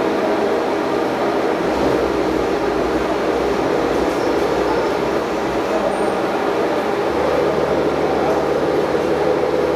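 A steady mechanical rumble with a low hum, running without a break.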